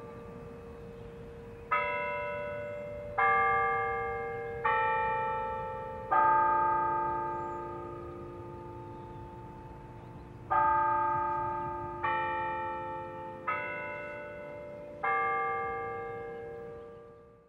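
Church bells ringing a tune of struck notes at different pitches, two phrases of four, each note ringing on and fading, with a pause between the phrases. The last note fades away at the end.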